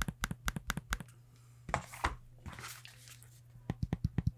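Asus ROG Flow X13 laptop trackpads being clicked rapidly with a fingertip, about six sharp clicks a second, in two runs with a short stretch of rustling between them.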